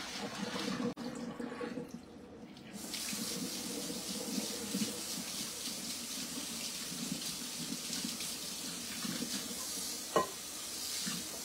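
Liquid splashing into a kitchen sink, then the faucet is turned on about three seconds in and water runs steadily into the sink. There is one short knock near the end.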